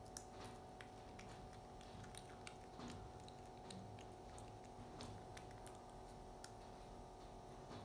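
Baby monkey chewing lotus seeds: faint, irregular crunchy clicks several times a second, over a low steady hum.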